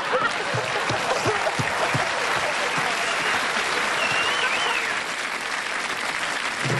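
Studio audience applauding and laughing after a joke.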